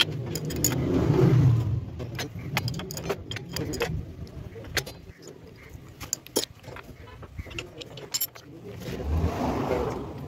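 Metal hand tools clicking and clinking irregularly against the motorcycle engine's parts. A road vehicle passes twice, swelling and fading: loudest about a second in, and again near the end.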